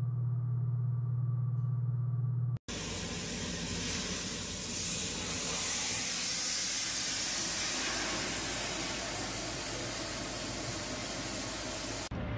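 A steady low hum for the first couple of seconds. After an abrupt cut comes a loud, even hiss of water jetting under pressure from a buried pipe broken open while digging a trench.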